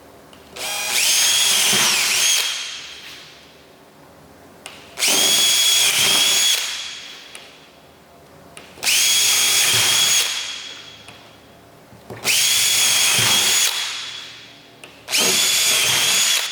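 Power drill with a 1/4-inch bit and depth gauge boring holes into a composite RV floor panel: five short runs a few seconds apart, each spinning up to a steady whine and then winding down.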